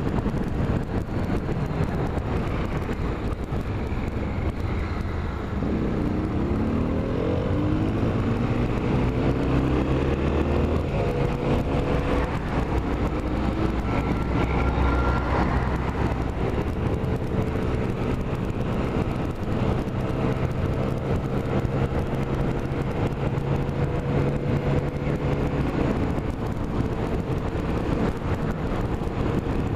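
A motor vehicle on the move: engine and road noise throughout. The engine's pitch climbs as it speeds up about six seconds in, then it runs steadily.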